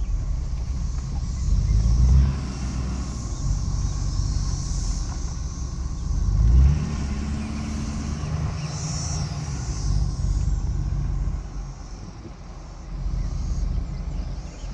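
Pickup truck driving slowly, heard from inside the cab: a steady low engine and road rumble, with the engine note rising briefly about two seconds in and again at about six and a half seconds as it accelerates.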